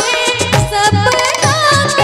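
A woman singing a wedding folk song (vivah geet) into a microphone, her voice sliding and ornamenting the melody, over instrumental accompaniment with a regular drum beat.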